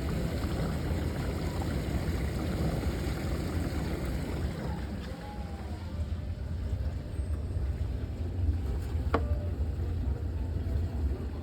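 Bosch dishwasher running with a steady low rumble, with one sharp click about nine seconds in.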